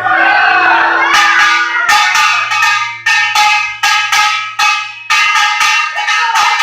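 Kkwaenggwari, the small brass gong of a pungmul ensemble, struck in a quick, uneven rhythm with a bright ringing tone, the drums silent for the moment.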